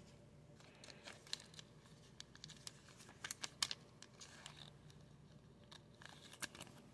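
Faint crinkling and ticking of a thin plastic penny sleeve as a trading card is slid into it, with a cluster of sharper crackles about three to four seconds in.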